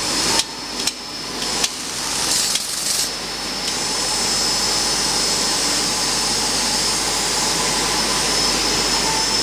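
Robotic end effector working on an aircraft fuselage shell panel: a few sharp clicks in the first couple of seconds, then a steady whirring hiss with a thin high tone.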